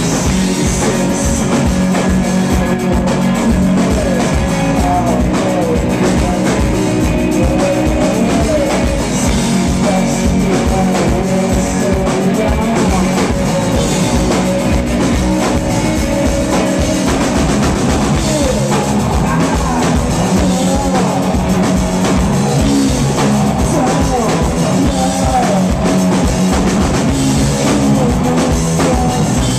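Live rock band playing loud and steady: drum kit and electric guitars.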